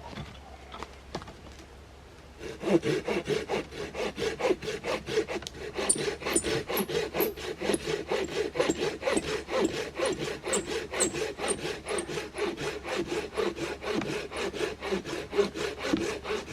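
Silky GomBoy folding hand saw cutting through a maple log with quick, even back-and-forth strokes. The sawing starts about two seconds in.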